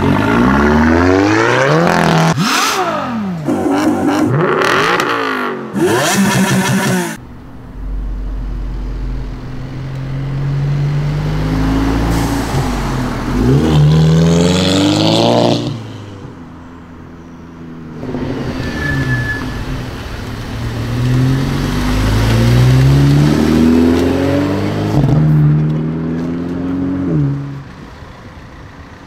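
Several Volkswagen Sciroccos accelerating hard in turn, in separate cuts. In each, the engine pitch climbs through the revs, drops at a gear change and climbs again. The first few seconds hold fast rises and falls of revving before a sudden cut.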